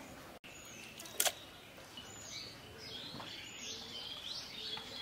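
Small birds chirping repeatedly in the background, with a single sharp click about a second in.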